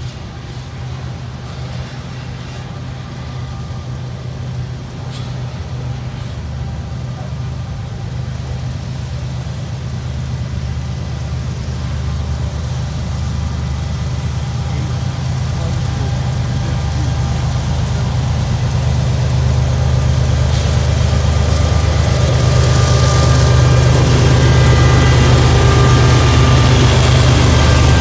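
The GE diesel engine of CSX ES44AH 857, a mid-train DPU locomotive on a coal train, runs with a steady low hum that grows louder as the unit approaches and draws alongside. Under it is the rolling rumble of coal hopper cars passing.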